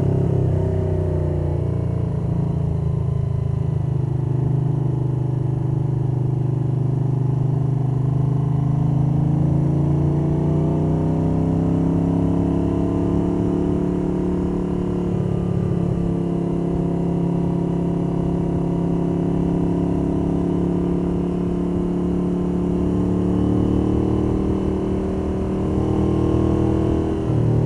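1982 Moto Guzzi 850 Le Mans III's air-cooled V-twin running under way through Lafranconi Riservato Competizioni exhausts. Wind noise and valvetrain sound come through, picked up by a microphone wrapped in cotton cloth in a jacket pocket. The engine note climbs slowly, holds steady, then dips and picks up again near the end.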